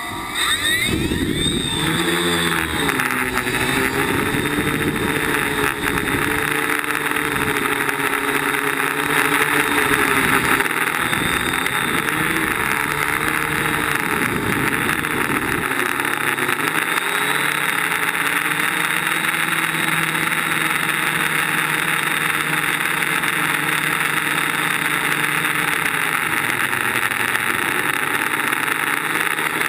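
DJI Flame Wheel quadcopter's electric motors and propellers running in flight, heard from the camera on the frame: a steady buzz over propeller-wash hiss. The pitch wavers up and down with throttle changes during lift-off and early flight, then holds steadier from about halfway through.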